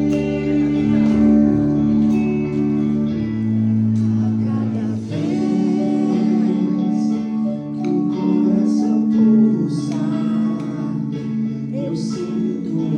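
Background music: a slow song led by guitar over held chords, with some singing.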